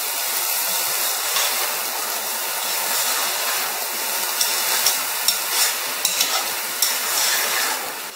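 Rice and sugar syrup sizzling in a stainless steel pot as a slotted metal spatula stirs through it, a steady hiss with a few light clicks of the spatula against the pot in the second half.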